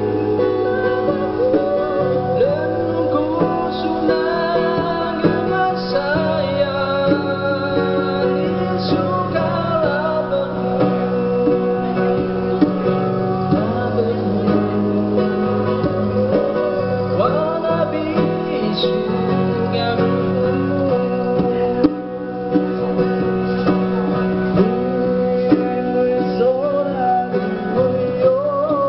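Music: acoustic guitar accompaniment with a melody line that glides in pitch over it, playing steadily throughout.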